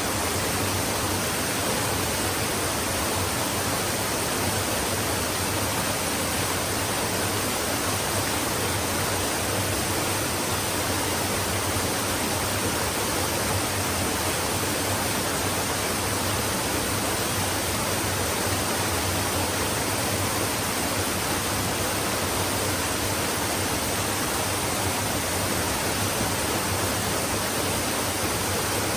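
Flowing stream: water rushing steadily, an even, unbroken noise with no splashes or changes standing out.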